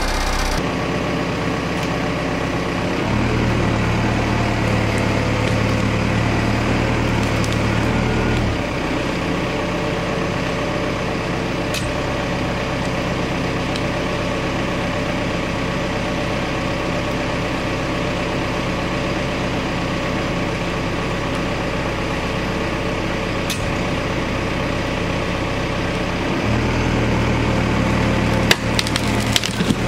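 A boom truck's engine running steadily, revving up twice for several seconds as its hydraulic boom pulls on a wood-framed entry addition. The straining wood gives a few sharp cracks, the loudest near the end.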